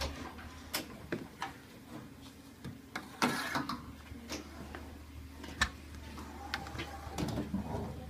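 Camera handling noise: scattered clicks and knocks as the handheld camera is moved about close to the floor, with a brief rustle about three seconds in, over a steady low hum.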